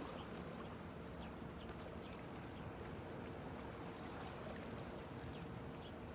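Gentle water lapping against a rocky shoreline, with a faint steady hum and a few short, high chirps.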